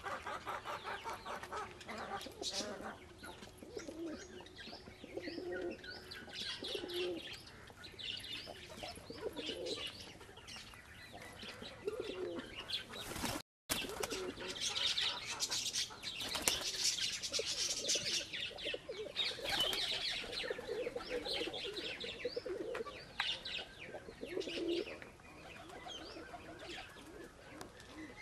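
Domestic pigeons cooing over and over, with wing flaps and high, thin chirps mixed in.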